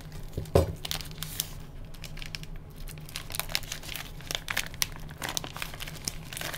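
Plastic vacuum-sealed sausage package crinkling and rustling as it is handled and opened, with a sharp knock about half a second in.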